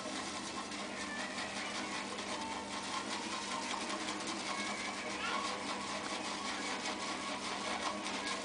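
Simpsons Berkeley shaving brush whipping Body Shop Maca Root shaving cream in a bowl: a steady wet swishing and rapid clicking of bristles against the bowl, with a few short squeaks. The lather is still on the dry side.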